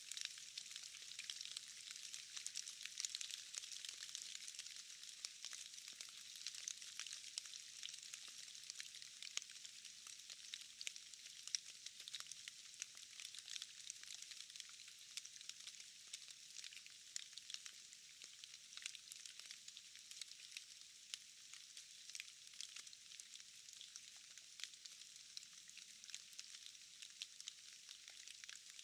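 Steady rainfall, a soft, even hiss of many small drops pattering with fine crackles throughout.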